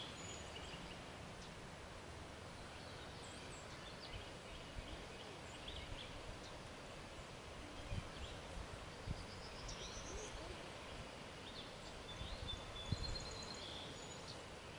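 Quiet outdoor ambience with distant songbirds calling and trilling off and on, and a few faint low thumps.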